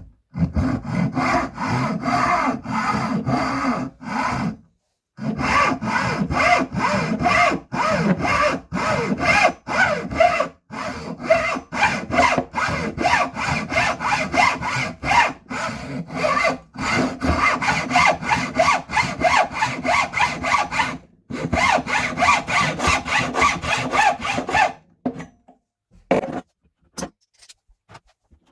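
Hand saw cutting through wood in steady back-and-forth strokes. It pauses twice briefly and stops near the end.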